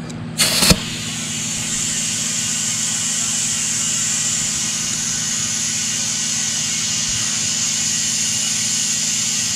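Compressed air hissing steadily through an air chuck held on a car tire's valve stem, filling the tire, with a short loud blast as the chuck is pressed on about half a second in. A steady low hum runs underneath.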